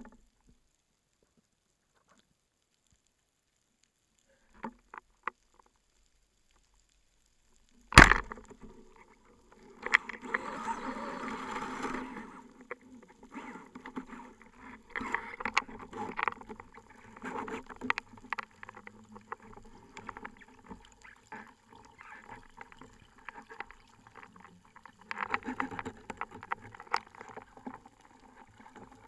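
Underwater, a wooden band-powered speargun fires with one sharp, loud crack about eight seconds in, after a quiet stretch with a few faint clicks. Then comes irregular clicking and rattling of the reel line and gear while the speared bluefish pulls.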